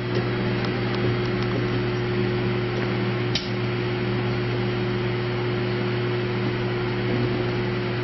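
Microwave oven running with aluminium foil inside, a steady electrical hum with the cooling fan's whir, broken by a few faint ticks and one sharper click about three and a half seconds in.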